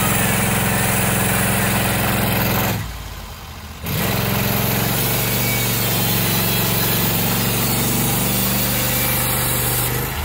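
Norwood LumberPro portable band sawmill running steadily while its blade cuts a slab off a white oak log. The sound drops away suddenly for about a second, around three seconds in, then comes back.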